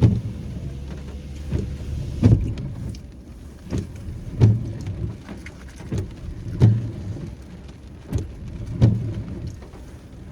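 Car windshield wipers sweeping in the rain, a low thump about every two seconds with a lighter knock just before each, over the steady patter of rain on the car.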